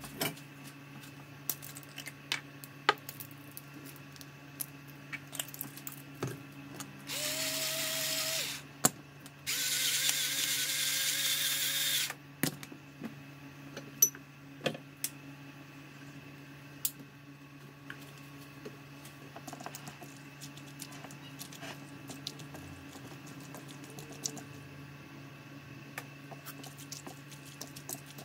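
An electric pepper grinder runs in two bursts, the first about a second and a half and the second about two and a half seconds. Scattered light clicks and taps of utensils on a bowl come around them, over a faint steady hum.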